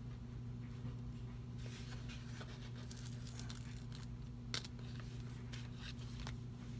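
Paper sticker sheet rustling and crinkling as a banner sticker is peeled from its backing, with small clicks and one sharper click about four and a half seconds in, over a steady low hum.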